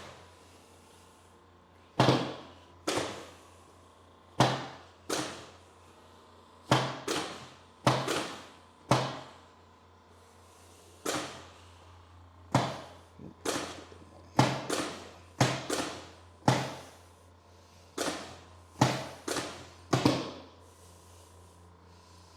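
Repeated sharp thuds from quick, forceful chiropractic thrusts worked over the large muscles of the back, about twenty of them at irregular intervals, several in quick pairs.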